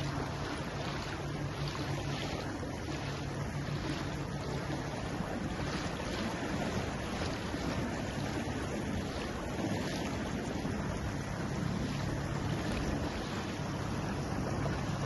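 Sailing yacht underway: wind buffeting the microphone over a steady rush of water along the hull, with a low hum that fades in the middle and comes back.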